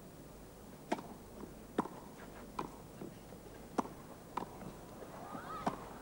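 Grass-court tennis rally: sharp pops of the ball off the racket strings, about six hits at uneven intervals of roughly a second.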